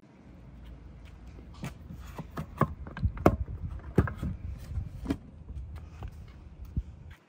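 A Shad plastic motorcycle top case being handled: a run of irregular sharp clicks and knocks as its key, latch and lid are worked and the lid opens, loudest a few seconds in.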